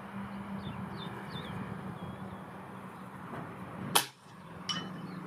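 A single shot from a Reximex Throne Gen-2 PCP air rifle in .177 (4.5 mm), a sharp crack about four seconds in, followed under a second later by a fainter click.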